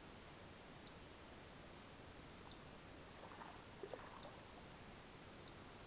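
Near silence: faint outdoor background hiss, with a few faint high ticks about a second and a half apart and a little faint scattered sound a little past the middle.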